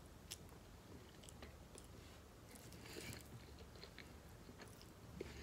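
Faint chewing of a mouthful of spaghetti in tomato sauce, with small wet mouth clicks scattered through it.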